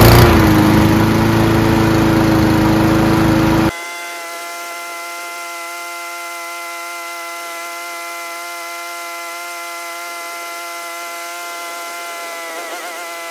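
Troy-Bilt TB240 mower's Honda engine just started, its speed rising and then running steady and loud for a few seconds as it warms up on the automatic choke. It cuts off abruptly, a little under four seconds in, into a steady held music tone.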